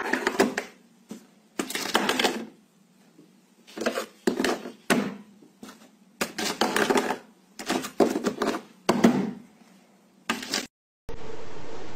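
A plastic desk cable-grommet cap rattling and clattering in its hole in about six short bursts with pauses between. A steady hiss takes over near the end.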